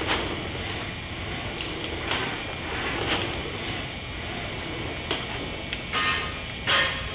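A 4-metre humanoid robot stepping sideways: its leg mechanisms give short clunks roughly once a second over a steady mechanical hum. Near the end there are two louder, grating sounds.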